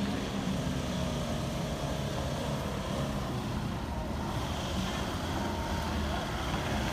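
Engine of a heavily loaded Isuzu light truck running steadily under load as it pulls up a rough, dusty dirt slope.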